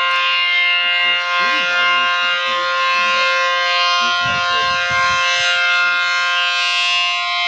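ACA Allertor 125 outdoor warning siren sounding a steady, non-wailing tone made of several pitches at once. Faint low sounds pass underneath at times.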